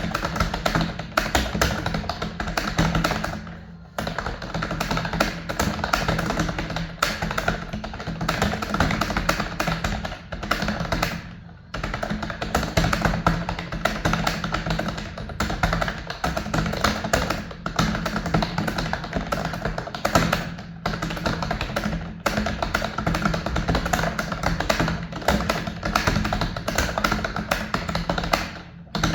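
Rapid computer keyboard typing, a dense run of key clicks with a few brief pauses, over background music.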